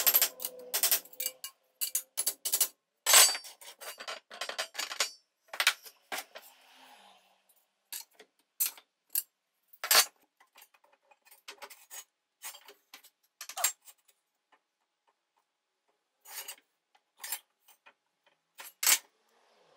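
Irregular clicks, taps and light knocks of tools and small metal parts being handled, with short pauses between them.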